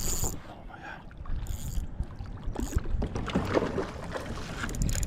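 Kayak hull knocking and water moving against the boat while a big bass is fought and landed from the kayak.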